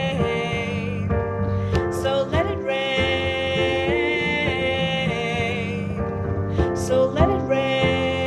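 Music: a song's accompaniment with sustained keyboard chords changing every second or so, and a few brief hissy accents.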